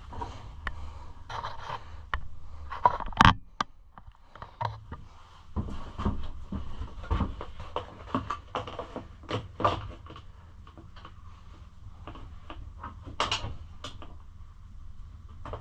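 Hard plastic pit-bike body panels and parts being handled and fitted: scattered scrapes, clicks and knocks, with one sharp knock about three seconds in.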